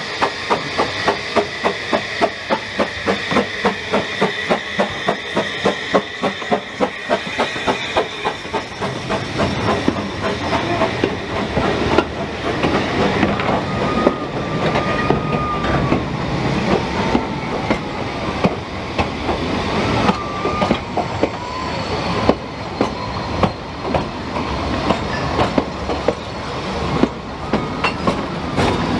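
Narrow-gauge train running, with an even beat of about three a second at first that gives way to a denser clatter. A thin, wavering wheel squeal comes and goes around the middle.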